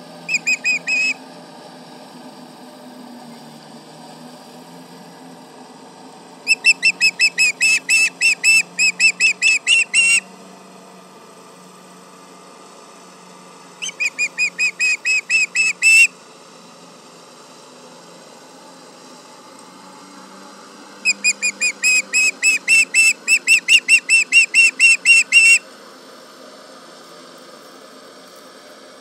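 Ospreys giving alarm calls: runs of sharp, whistled chirps, about four or five a second, in four separate bouts. The birds are calling at a tractor. A faint steady low hum lies underneath.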